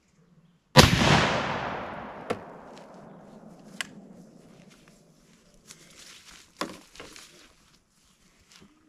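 A single rifle shot from a Browning BAR semi-automatic in .308 Winchester, under a second in; its report fades away over the next few seconds. A few lighter sharp clicks and knocks follow.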